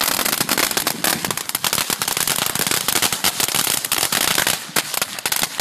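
Ground fountain firework spraying sparks with a dense, rapid, continuous crackling.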